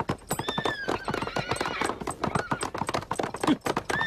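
Hooves of several horses clattering fast as the riders set off, with a horse neighing shrilly for about a second, starting about half a second in.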